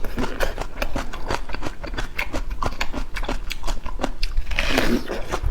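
Close-miked eating: a person biting and chewing food, with quick, closely packed clicks and a louder crunchy bite near the end.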